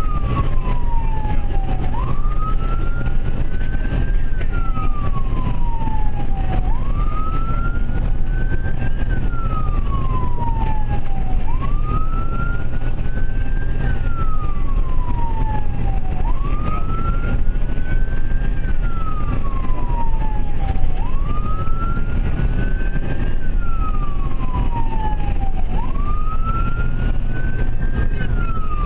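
Ambulance electronic siren in wail mode, rising and falling slowly in a cycle of about five seconds, over steady road and engine rumble.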